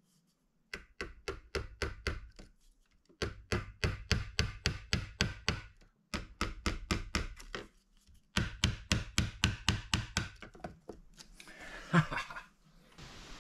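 Small hammer tapping a thumbtack into a soft wooden light base: rapid light taps about six a second, in four runs with short pauses between. Near the end, a single louder knock.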